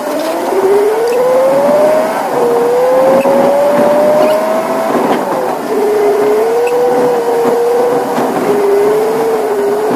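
Tata Signa truck's diesel engine heard from inside the cab while driving. Its note climbs under acceleration and drops suddenly twice, about two and five and a half seconds in, as gears change, then holds fairly steady.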